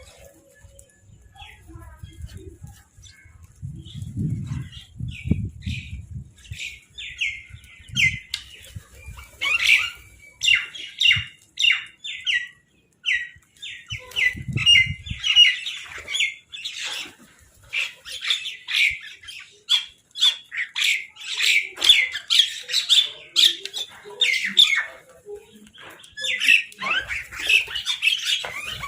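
A flock of crows cawing, many short harsh calls overlapping and growing denser from about seven seconds in. Low rumbles come a few seconds in and again around the middle.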